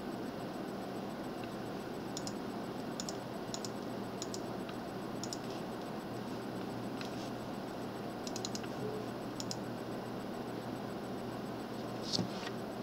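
Light clicks from a computer's keys or mouse, a dozen or so spaced through the middle of the stretch, with one louder click near the end. Under them runs a steady background hiss and low hum.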